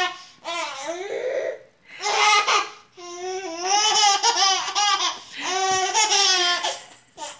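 A baby laughing out loud in about four high-pitched bouts, with short breaks between them.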